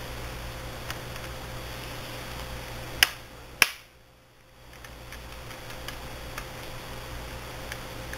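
Two sharp plastic clicks about half a second apart, with a few fainter ticks around them: a laptop's plastic screen bezel being pressed so its clips snap into place, over a steady low hum.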